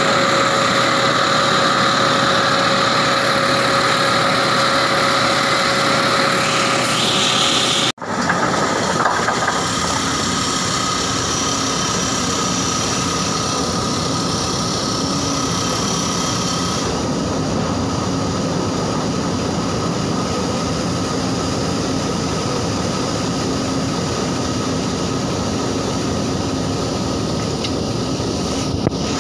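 Tracked rock drill rig running steadily close up, its engine and compressor giving a droning whine. After a sudden cut about eight seconds in, the rig is heard a little quieter and from further off as it drills into the rock.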